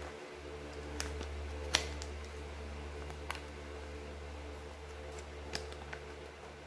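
A few faint, sharp clicks and crinkles of a plastic spice sachet against a glass jar rim as ground turmeric is poured in, over a steady low hum.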